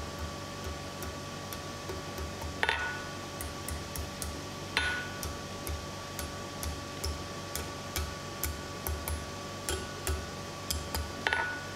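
Hand hammer tapping a red-hot mild steel bar on an anvil to curl a scroll, in a steady run of light taps. Three harder blows, about a third of the way in, near halfway and near the end, make the anvil ring. A steady hum runs underneath.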